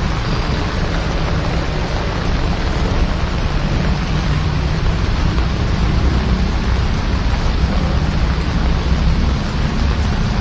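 Heavy rain falling steadily, over the steady low rumble of a vehicle driving through it.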